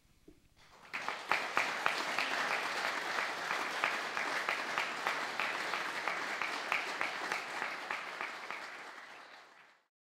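Audience applauding, starting about a second in after a brief quiet, then fading out near the end.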